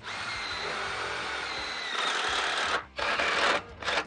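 Power drill driving self-drilling hex-head screws: one steady whirring run of nearly three seconds, louder in its last part, then a short pause, a brief burst and another run starting near the end.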